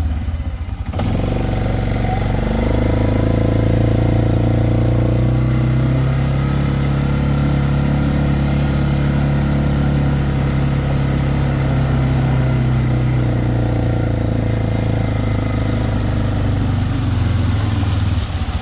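Four-wheeler (ATV) engine running while being ridden: it dips briefly at the start, picks up revs about a second in, then runs steadily.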